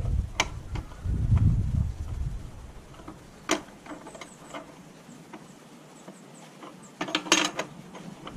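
Small metallic clicks and taps as a motorcycle rear indicator's mounting fixing is done up through the rear mudguard, with a quick run of clicks about seven seconds in. A low rumble in the first two seconds is the loudest part.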